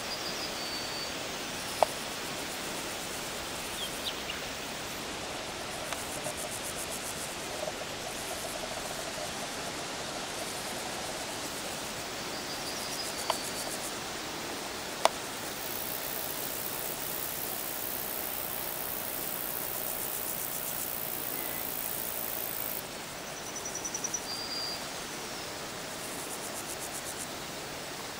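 Steady outdoor hiss, with a short high bird chirp that comes three times and a few sharp clicks.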